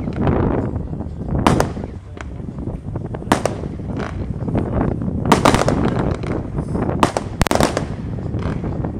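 Lesli 'Peak Power' fireworks cake firing shots into the sky: a series of sharp bangs from bursting shells, roughly one every one to two seconds, over a steady rumble.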